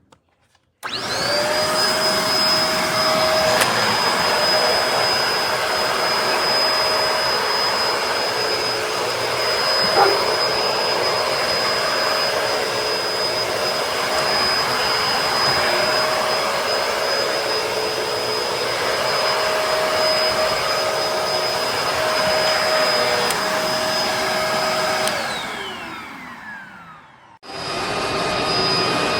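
Bissell MultiClean Allergen Pet upright vacuum switched on and running steadily with a high motor whine. There is one sharp knock about a third of the way in. Near the end it is switched off and winds down with falling pitch, then is switched on again just before the end.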